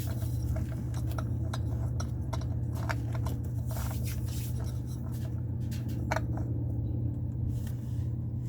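Small clicks and light scraping as a new Honda oil filter is turned by hand onto its threaded mount on the 1.8-litre engine, over a steady low hum.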